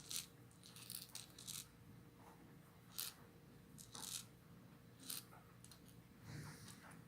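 Scattered light clicks and rattles of small hard objects being handled, over a faint steady hum.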